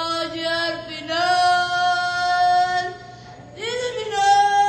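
A solo voice singing long, drawn-out notes in a high register, with a short break about three seconds in.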